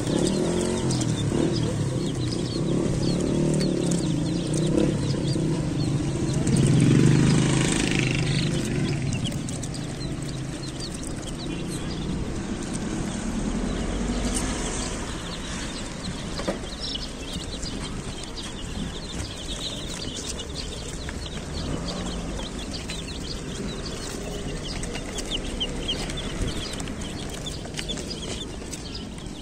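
A flock of domestic chicks peeping continuously, many short high chirps overlapping. A low rumble underneath in the first seconds swells loudest about seven seconds in, then fades.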